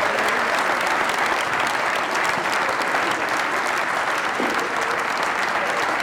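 Audience applauding steadily: a dense, sustained clapping from a large crowd in a hall.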